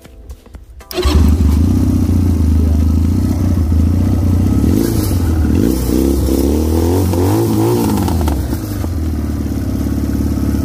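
Chinese 250cc ATV engine coming in suddenly about a second in, then running steadily at idle. Its pitch wavers up and down for a few seconds in the middle. The carburettor has just been tuned on the air mixture screw, and the idle is still set a little low.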